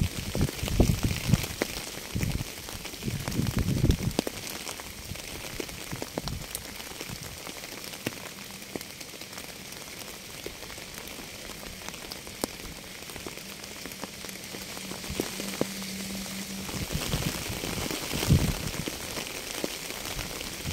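Steady rain falling: a constant hiss of rainfall with individual drops ticking through it. Low, rumbling swells come in over the first few seconds and again near the end.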